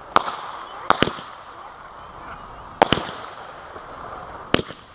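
Consumer fireworks firing: aerial shells burst with sharp bangs, mostly in quick pairs, about every second and a half to two seconds. A steady crackling hiss runs between the bangs.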